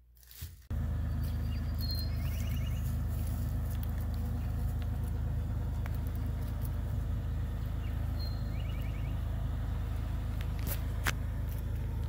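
Excavator's diesel engine idling steadily, a low even hum that starts suddenly just under a second in.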